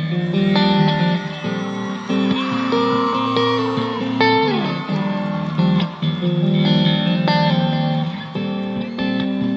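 Guitar music: a melody of held notes, with a sliding note about halfway through.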